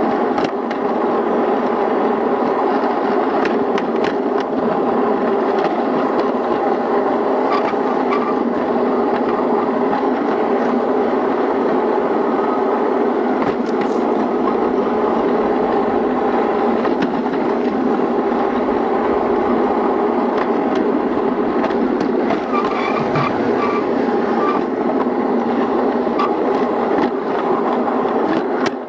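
Playmobil garden-scale model train running along outdoor track, its electric motor and gearing whirring steadily at close range, with occasional sharp clicks.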